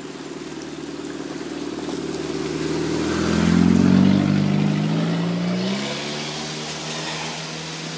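A car driving past: its engine and tyres grow louder to a peak about four seconds in, then fade as the engine pitch drops on its way by.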